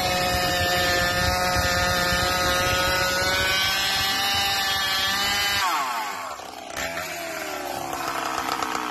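Freshly ported McCulloch Pro Mac 610 two-stroke chainsaw cutting through a log at steady high revs under load. A little past halfway the engine speed drops away as the saw comes out of the cut, then climbs again near the end.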